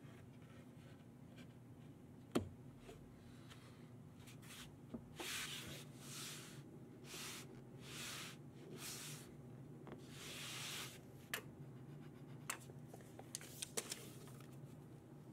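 Hands rubbing and sliding over a wooden board on a plywood-topped work bed: a run of short scuffing sweeps, with one sharp knock about two seconds in and a few light clicks near the end as a tape measure is laid out.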